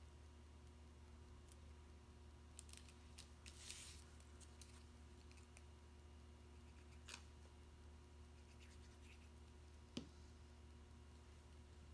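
Near silence with faint scratchy rustling and light clicks of small cardstock pieces being handled and glued by hand, then a single sharp tap about ten seconds in.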